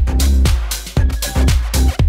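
Background electronic dance music with a steady beat and heavy bass.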